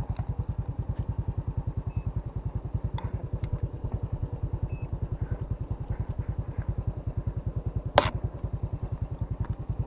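Motorcycle engine idling with an even, low pulsing beat of about eight pulses a second. A single sharp click sounds about eight seconds in.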